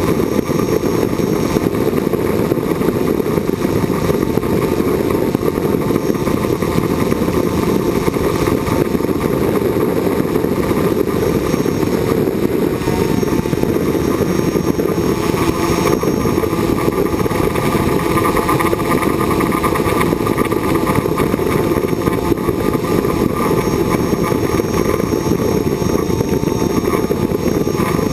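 Small multirotor drone running steadily in flight: a constant rush of propeller wash and motor noise over the on-board camera's microphone, with a thin steady high whine.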